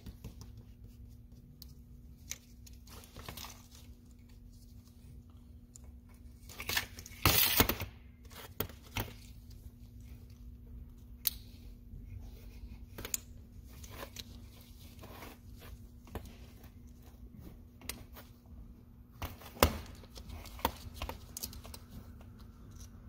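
Plastic electrical connectors and wiring of fuel-injector pigtails being handled and pushed onto port injectors on a fuel rail: scattered clicks and small rattles, with a louder noise about a second long around seven seconds in and a sharp click a few seconds before the end.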